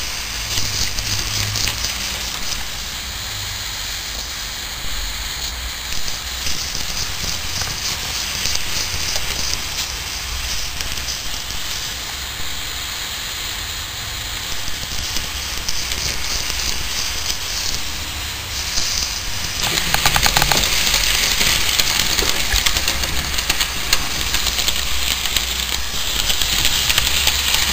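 Steady hiss of the lighter-gas burner firing the boiler of a miniature HO scale live-steam locomotive as its small two-cylinder steam engine runs. The noise grows louder and fuller about two-thirds of the way through.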